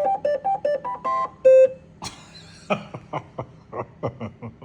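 Bambu A1 3D printer playing a short beeping tune of rising and falling notes that signals the print is finished. This is followed by a brief rushing noise and a quick run of short pulses, about four a second.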